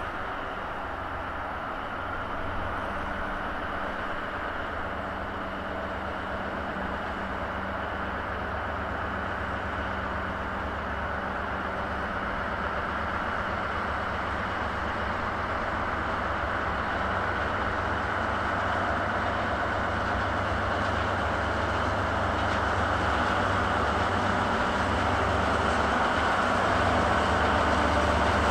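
Two diesel locomotives working in tandem, their engines humming steadily as they haul a freight train of flat wagons, with the rumble of wheels on rail. The sound grows steadily louder as the train approaches.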